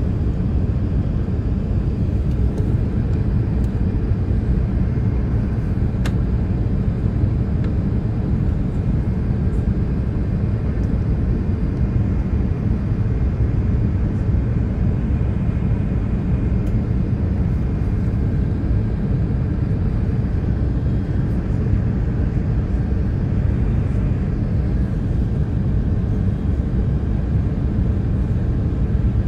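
Steady cabin noise inside an Airbus A380 on approach: a low, even roar of the engines and the airflow over the fuselage.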